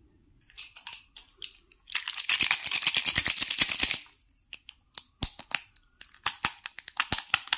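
Plastic felt-tip pens clattering and clacking together in a hand: a dense rattle about two seconds in, then scattered sharp clicks.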